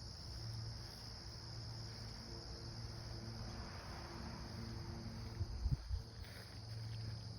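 Steady high-pitched chirring of a cricket chorus, with a low hum that comes and goes and a few low bumps about five and a half seconds in.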